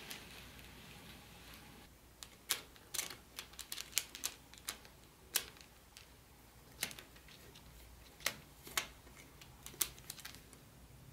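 Irregular light clicks and taps from model train set pieces being handled, thickest between two and five seconds in, with scattered single clicks after.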